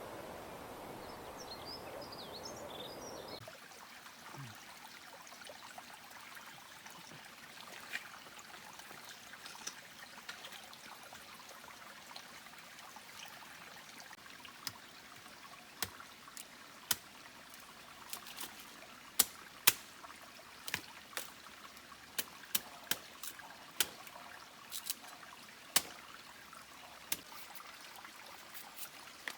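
Water dripping and trickling: irregular sharp drips over a faint steady wash, coming thicker in the second half. In the first few seconds, before a sudden change, a steadier outdoor noise carries a few high chirps, likely birds.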